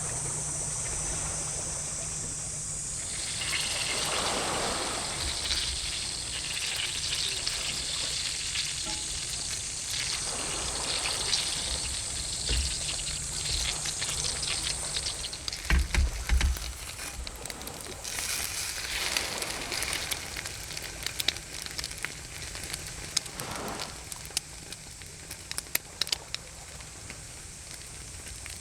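Sea waves washing in at intervals of several seconds, each wash rising and falling away, over a low wind rumble on the microphone, with scattered sharp clicks in the second half.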